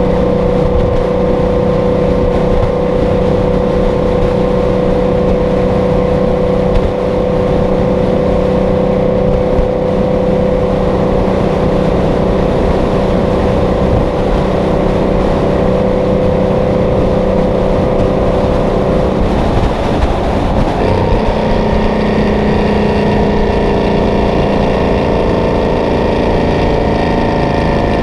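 Detroit Diesel 12V71 two-stroke V12 engine of a Kenworth W900A pulling steadily at highway speed. About two-thirds of the way through, its note dips briefly, then settles into a slightly higher, brighter tone.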